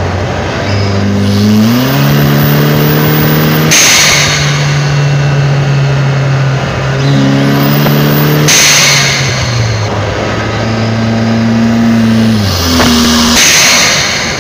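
Turbocharged Kia Sorento engine pulling under throttle, with a very high whistle as the turbo spools. Each time the throttle closes the blow-off valve vents with a sudden loud hiss and the engine note drops, three times about five seconds apart.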